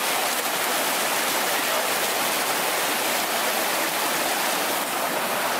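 A fast, shallow mountain brook rushing over rocks: a steady, even rush of water.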